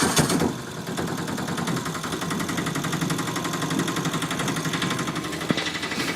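Auto rickshaw's single-cylinder engine running with a fast, even putter, a little louder for the first half second before settling steady. A single sharp click near the end.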